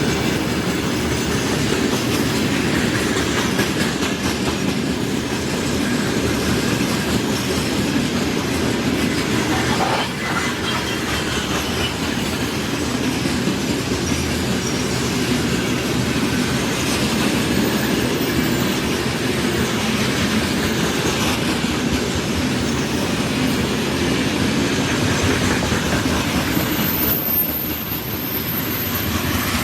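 Train cars rolling past on the rails, wheels clattering steadily over rail joints. A brief high-pitched squeal comes near the end.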